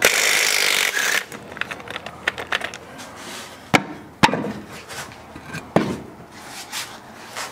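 A power wrench briefly whirring a lug nut off a wheel, followed by several knocks and clunks as the old tyre and steel wheel are worked off the hub.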